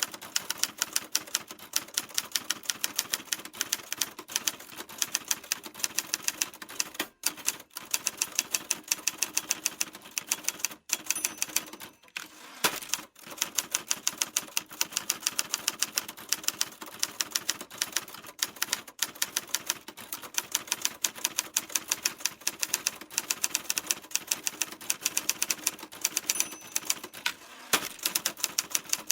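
Typewriter keys typing in a fast, steady stream of sharp clacks, several strikes a second, broken by a few short pauses.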